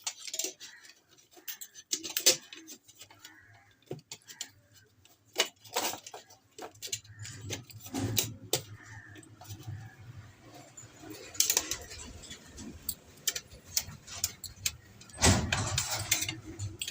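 Small parts, wires and tools being handled at a workbench: irregular sharp clicks and light clinks. A low hum comes in about six seconds in, and a louder rustling burst sounds near the end.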